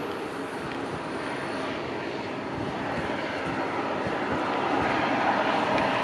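Jet aircraft engine noise: a steady rush that swells louder over the last few seconds.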